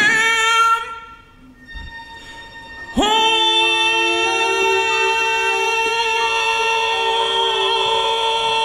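Soundtrack backing music with no lead vocal: a note at the start fades into a quiet stretch, then about three seconds in a held chord starts abruptly and sustains, the track's ending leading into the next song.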